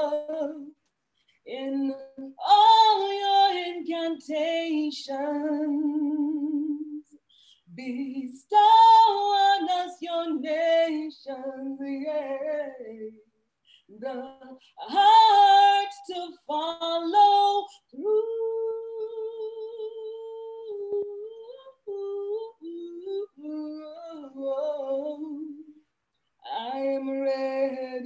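A woman singing unaccompanied, in phrases of a few seconds with short pauses between them. Some notes waver, and she holds one long steady note about two-thirds of the way through.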